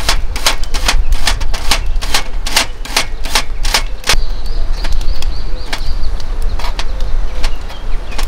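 Kitchen knife chopping an onion on a cutting board, about three or four strokes a second, then slower single cuts about a second apart after about four seconds.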